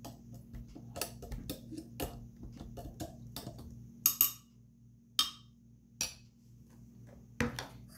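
A knife poking and scraping inside a blender jar full of thick smoothie, making irregular taps and clinks against the jar and the blade at the bottom, with a few louder clinks in the second half. The knife is checking for unblended chunks while the blender motor is off.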